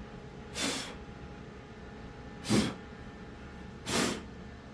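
A person breathing close to the microphone: three short, noisy breaths about one and a half to two seconds apart.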